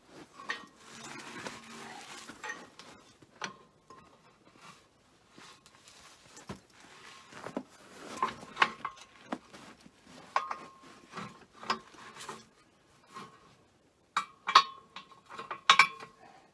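Steel quick hitch being worked onto a Ford TW-20's three-point lower lift arms: a run of metal clanks and clinks, some ringing briefly, with scraping early on and the loudest knocks near the end.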